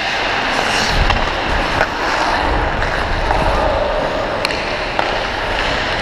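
Ice hockey skate blades scraping and carving on the ice, a steady rasping hiss, with a few sharp clacks spread through it.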